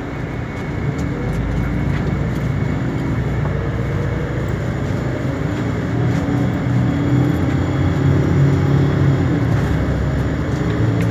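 Intercity coach bus under way, heard from inside the passenger cabin: steady engine hum and road noise. It grows louder over the first couple of seconds.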